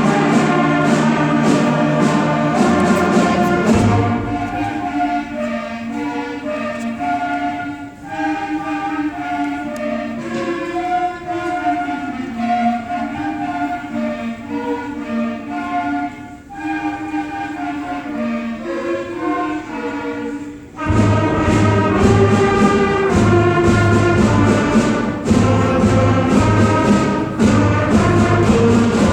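Orchestral-style music with choir-like voices, a melody over a bass line and beat. It drops to a softer passage about four seconds in and swells back to full, heavier music about two-thirds of the way through.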